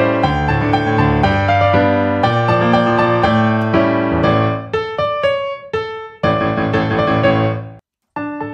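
Background piano music: a keyboard melody over held bass notes, thinning to sparser single notes after about four and a half seconds. It cuts out briefly near the end, then notes start again.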